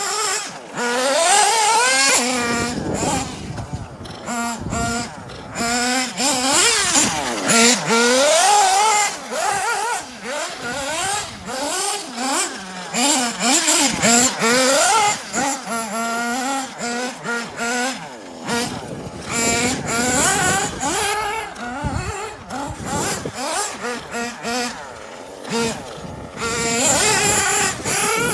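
Small nitro glow engine of a Kyosho Inferno MP9 TKI4 RC buggy revving hard and dropping back over and over as it is driven, its high pitch rising and falling with the throttle.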